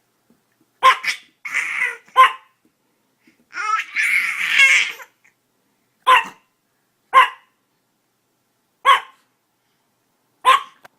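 A dog barking in single short, sharp barks, about seven of them spaced a second or more apart.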